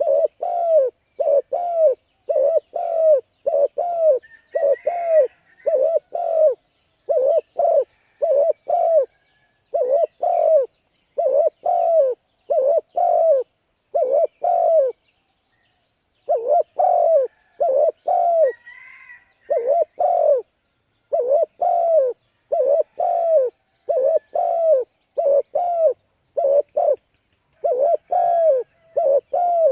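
Spotted dove cooing over and over, short coos about two a second in runs, with two brief pauses near the middle. A faint higher twitter comes in twice.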